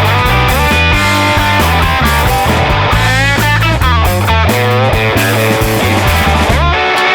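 Rock background music led by electric guitar, with notes sliding up and down over a steady bass line; the bass drops out near the end.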